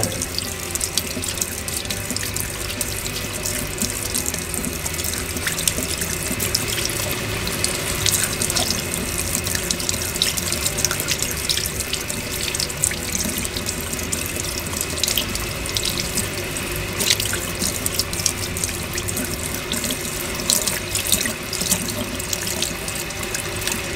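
Kitchen tap running steadily into a sink, the stream splashing over a duck breast held beneath it, with light scraping ticks from a knife blade drawn against the skin.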